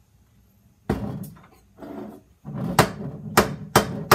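A stuck lid on a glass jar of salsa verde being worked loose: a few rough scrapes and knocks, then a run of sharp taps on the lid, about three a second, to break its seal.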